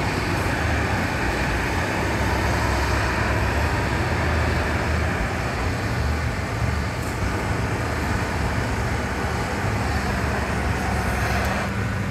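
Handheld gas torch burning with a steady hiss as it heats the tip of a blown-glass vase, over a low steady drone.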